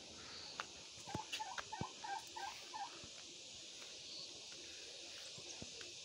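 A domestic turkey giving a quick run of about seven short clucking notes, roughly four a second, starting about a second in. A steady faint hiss lies underneath.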